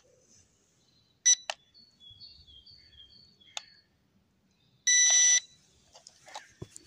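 Beeps from a drone's remote controller as its buttons are pressed: a short beep about a second in, then a longer beep of about half a second near five seconds, the loudest sound. Faint clicks come between the beeps, and light handling noise follows near the end.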